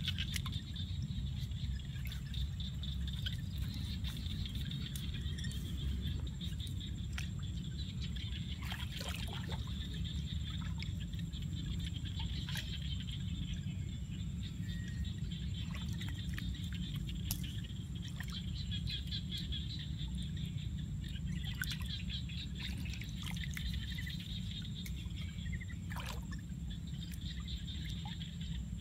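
Hands sloshing and splashing in shallow muddy paddy water, with scattered small splashes. Behind it runs a steady low rumble and a continuous high-pitched chirping.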